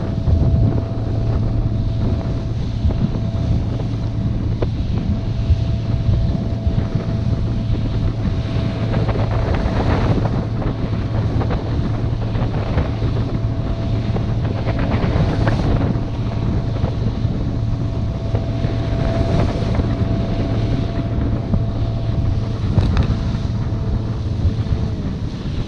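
The outboard motor of an aluminum bass boat (2019 Bass Tracker Classic) running steadily while the boat is under way, with wind buffeting the microphone and water rushing along the hull. Near the end the engine's steady note fades away.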